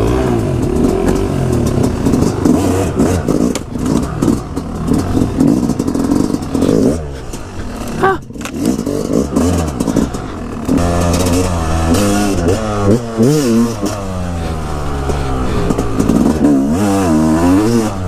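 Yamaha dirt bike engine running under the rider, revving up and down repeatedly in the second half as the bike accelerates over the track, with a brief drop in the middle. Clattering from the bike over rough ground.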